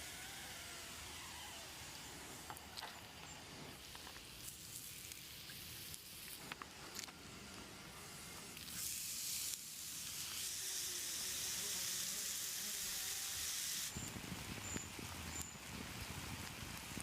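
Food sizzling over a campfire, with scattered crackles. The hiss swells about halfway through, then cuts off abruptly a few seconds before the end.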